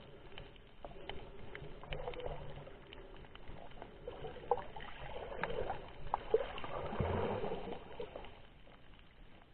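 Muffled underwater sound from a camera in its waterproof housing: water sloshing and rushing past, with scattered small clicks and crackles. It swells louder about five seconds in and fades near the end.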